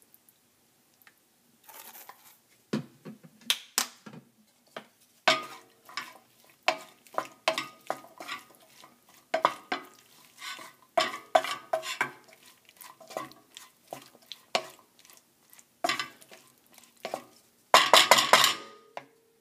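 A utensil scraping and clicking against a Calphalon skillet as pasta and kidney beans are stirred, in irregular strokes starting about two seconds in, with a loud dense flurry of scraping near the end.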